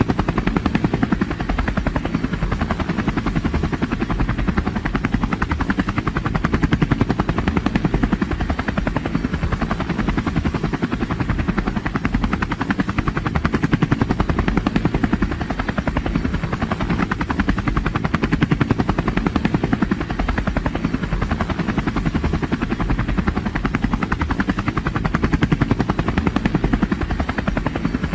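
Helicopter running steadily, its rotor blades beating in a fast, even chop.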